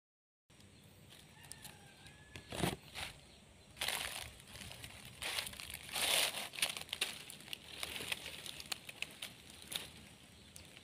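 Dry grass and leafy stems rustling and crackling in irregular bursts as they brush past, loudest around four and six seconds in.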